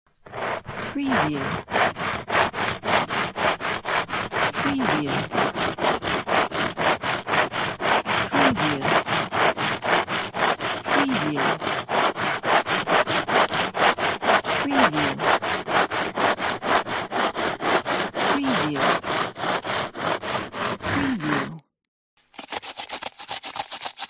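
Hand saw cutting through a piece of wood in fast, even back-and-forth strokes. It stops about 21 seconds in, and after a second of silence another run of sawing begins.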